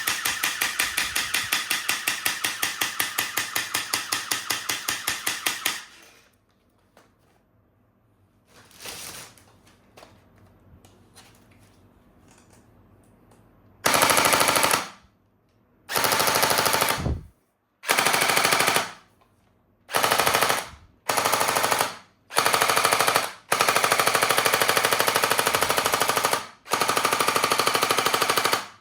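Toy gun's electronic machine-gun sound effect firing rapidly, cutting off about six seconds in. After a pause with a few faint clicks, it sounds again in a string of short bursts, the last one the longest.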